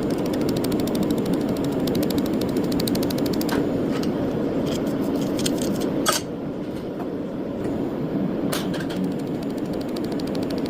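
Pulsed laser welder running with a steady hum, firing a fast, even run of sharp ticks. These stop about a third of the way in and give way to a few single clicks, the loudest a little past the middle.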